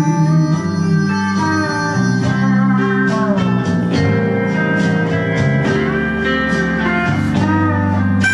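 Instrumental break in a slow blues song: a slide guitar plays gliding notes over a bass line and light percussion.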